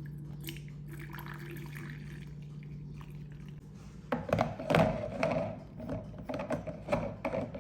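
Coffee being poured, the liquid splashing and gurgling irregularly and loudest from about four seconds in, over a steady low hum.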